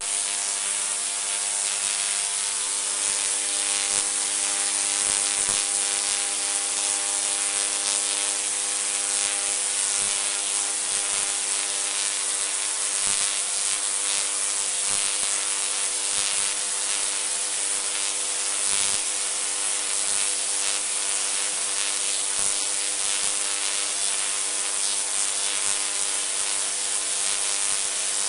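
Homemade spark-gap Tesla coil running, its spark gap firing and streamers crackling off the top terminal: a continuous harsh buzz over a hum of several steady, evenly spaced tones.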